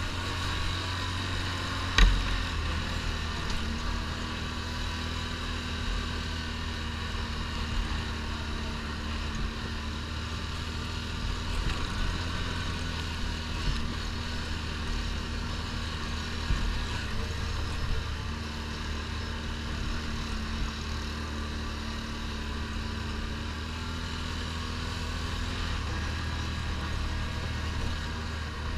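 ATV engine running steadily under way on a loose gravel track, with one sharp knock about two seconds in.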